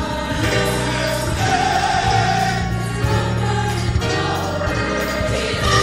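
Gospel choir singing over a steady bass accompaniment, with one long held note about a second and a half in.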